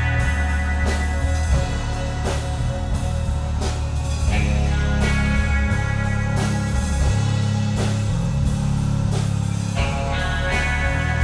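Rock band jamming: electric guitar holding sustained notes over a heavy bass line and a drum kit keeping a steady beat.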